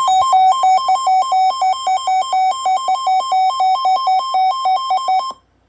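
Emergency Alert System warning tones: a loud, buzzy electronic tone that flips rapidly and irregularly between a lower and a higher pitch, like coded data, then cuts off sharply near the end.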